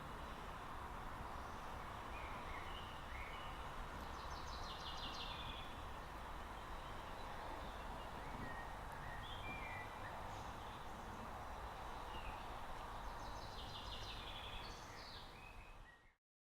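Birds chirping in short, rapid bursts, a few times, over steady background noise with no siren tone. The sound cuts off abruptly near the end.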